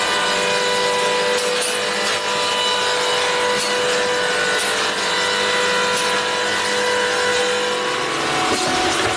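Hydraulic car baler running steadily with a mechanical whine as its steel lid swings down onto a car in the pit. The tone changes near the end as the lid reaches the car.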